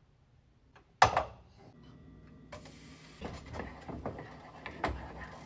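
Kitchen clatter while cooking: one sharp knock about a second in, then scattered knocks and clicks over a steady hiss.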